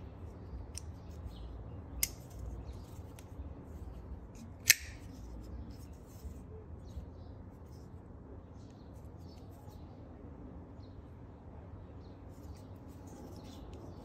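CJRB Feldspar folding knife being handled, its D2 steel blade flicked open and snapped shut. There are two sharp metallic clicks, about 2 seconds in and near 5 seconds in, the second louder. Faint small ticks fall between them.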